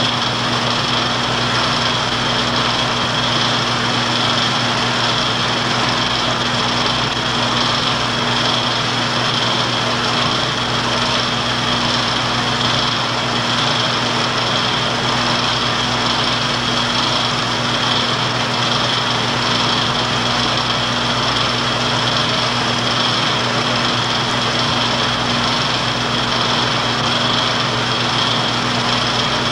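Film projector running: a steady mechanical whir with a constant low hum and a high whine, unchanging throughout.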